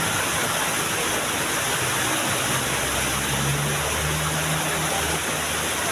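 Small waterfall's water rushing steadily, an even, unbroken rush.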